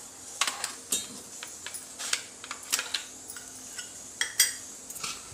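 Aluminium kulfi moulds and their lids clinking and tapping as they are handled, opened and set down in their metal stand: a series of irregular light metal clinks, the loudest a little after four seconds in.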